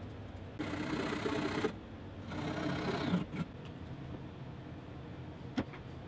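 Wood lathe turning a walnut knob: the wood is worked against the spinning blank in two scraping passes of about a second each. A single sharp click comes near the end.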